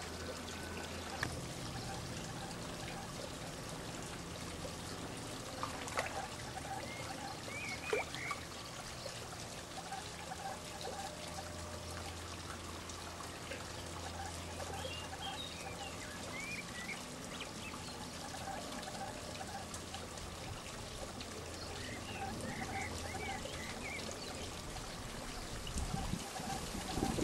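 Water trickling steadily into a garden pond. A small bird chirps in short bursts three times.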